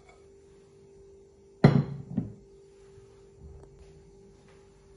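A glass mixing bowl of batter, whisk inside, set down on a hard counter with a loud thunk about a second and a half in, followed by a lighter knock. A faint steady hum sits underneath.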